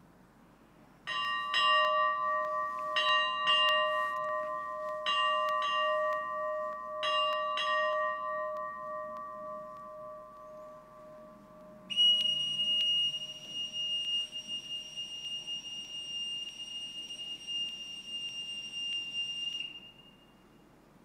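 The ship's bell of HMAS Perth (I), a brass ship's bell, struck eight times in four pairs, each pair ringing on. About twelve seconds in, a boatswain's call sounds one long, steady high note for about eight seconds and then cuts off.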